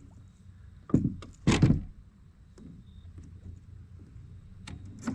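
Two heavy thuds about half a second apart, with a lighter knock near the end: knocks against a plastic kayak hull as the angler moves or handles gear.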